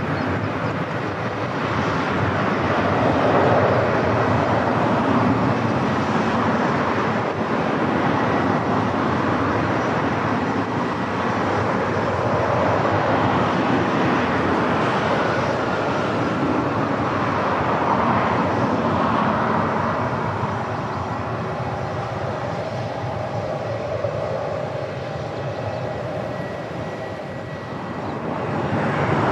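Passenger jet engines running: a steady roar with a faint high whine, easing off slightly near the end and then swelling again.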